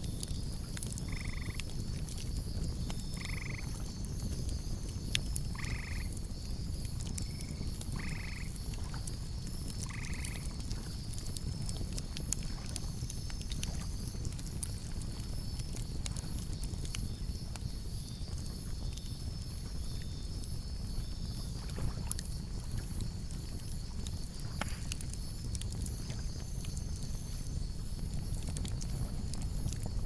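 Wood campfire crackling, with many sharp pops over a low rumble of flames. Insects chirp steadily in a fast pulsing rhythm, and several short animal calls come in the first ten seconds.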